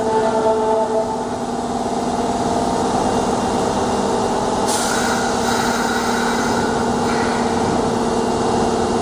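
Osaka Metro 22 series subway train standing at the platform with a steady hum and rumble; about five seconds in, a sharp hiss of compressed air starts and lasts about two seconds.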